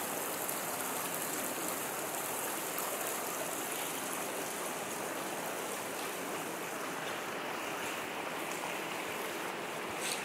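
Steady rushing hiss of water running through a railway tunnel, echoing off the tunnel walls. A brief knock near the end.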